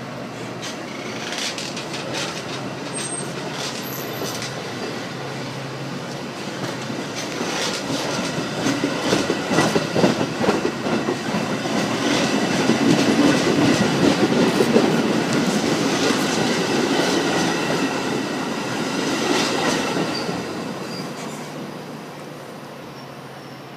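A Metra commuter train of stainless-steel bilevel cars rolling past at close range, its steel wheels clicking over the rail joints. The noise grows louder toward the middle and fades as the last car pulls away near the end.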